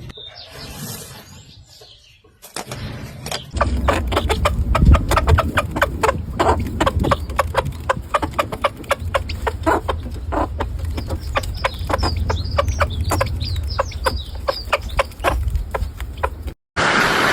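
Chickens clucking in a rapid run of short sounds, several a second, over a low rumble, with short high chirps mixed in about two-thirds of the way through.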